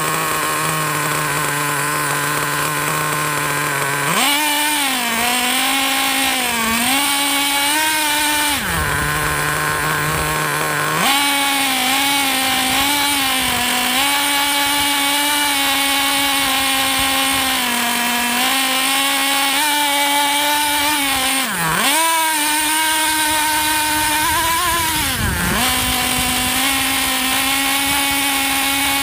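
Nitro RC truck's small glow-fuel engine, a Traxxas Nitro Stampede, idling steadily and then revving up about four seconds in. It runs at a higher, wavering pitch, drops back to idle briefly, then revs again, with two sharp dips in pitch near the end as the throttle is let off and opened again.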